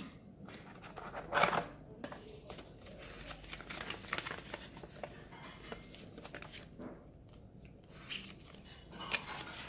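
Paper rustling as a small user manual and leaflets are lifted out of a cardboard box and their pages are flipped through, in a series of short rustles. The loudest rustle comes about a second and a half in.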